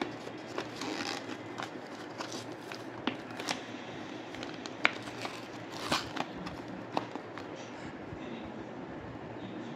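Handling and opening of a micro USB cable's packaging: scattered crinkles, clicks and taps, which thin out over the last couple of seconds.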